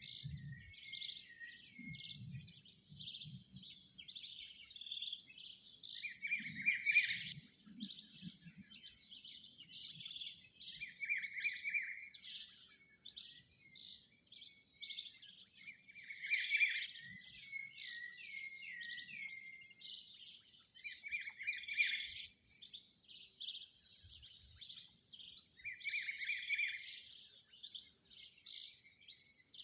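Mixed birdsong at dawn, many birds chirping, with one bird repeating a short song about every five seconds. Under it runs a steady high insect drone.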